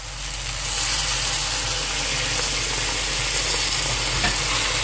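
Hot water poured into a hot pan of fried onion, tomato and spice masala, which sizzles and bubbles with a steady hiss that starts about half a second in.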